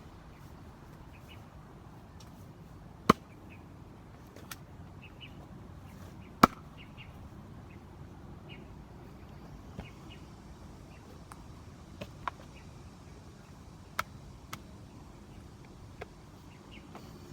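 A 4.5 lb Marathon axe striking wet acacia wood: two loud, sharp chopping blows about three and six and a half seconds in, then several lighter knocks spread through the rest. Birds chirp faintly in the background.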